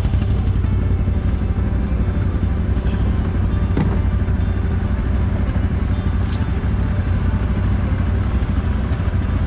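ATV (quad) engine running steadily.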